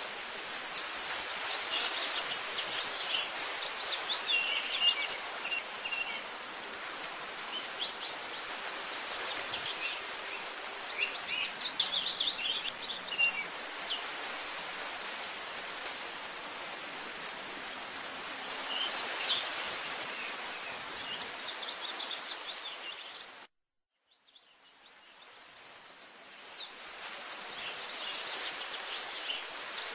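Outdoor birdsong ambience: scattered chirps and short trills from several small birds over a steady hiss. It cuts out briefly about three-quarters of the way through, then fades back in.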